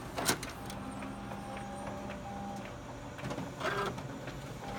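Konica Minolta bizhub 363 office copier running a single copy: a steady motor hum with sharp clicks as the paper feeds through. A short louder clatter comes about three and a half seconds in, and the hum starts up again near the end.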